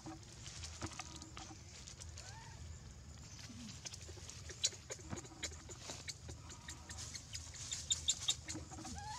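Faint, short, squeaky cries from a newborn macaque, a couple of brief glides in pitch, one about two seconds in and another rising at the very end. Between them come sharp clicks and crackles of dry leaf litter as the monkeys move, loudest about halfway through and again near the end.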